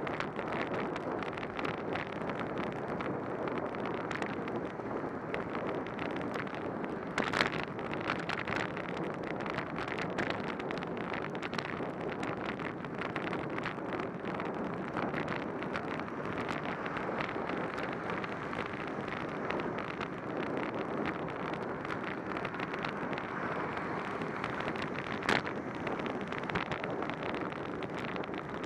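Steady rushing of wind over a bicycle-mounted camera, mixed with bicycle tyres hissing on a rain-wet road. Many small ticks run through it, with two sharper knocks: one about seven seconds in and one a few seconds before the end.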